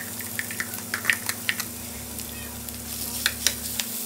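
Lump crab meat sizzling in hot olive oil in a copper frying pan, a steady hiss broken by many sharp crackles and pops. Near the end metal tongs click against the pan as the meat is broken up.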